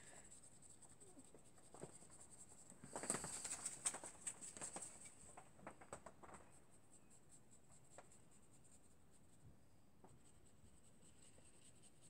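Faint scratchy strokes of a dry paintbrush flicking acrylic paint onto sketchbook paper to texture grass: a run of quick short strokes about three to five seconds in, then a few single taps.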